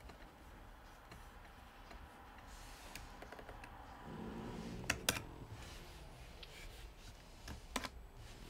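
Scattered taps on a laptop keyboard and mouse clicks, with a sharp double click about five seconds in and another near the end.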